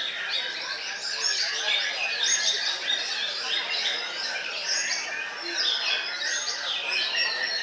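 Several caged white-rumped shamas singing at once: a dense, unbroken tangle of bright chirps, whistles and trills that overlap one another.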